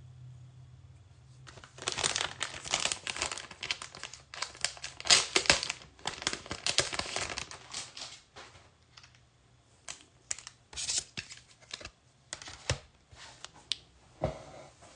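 Plastic packaging crinkling and tearing as it is handled, dense from about two seconds in, then thinning to scattered crackles after about eight seconds, with a dull thump near the end.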